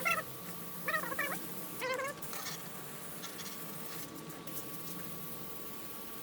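Several short, pitched animal calls, each a quick rise and fall, in the first two seconds, then a faint steady hum.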